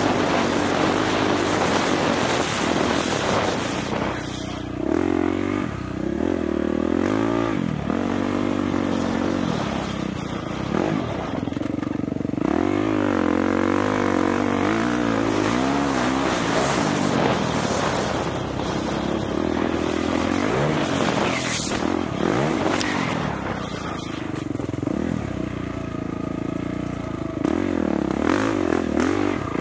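Dirt bike engine ridden hard off-road, the revs rising and falling every second or two with sudden drops between.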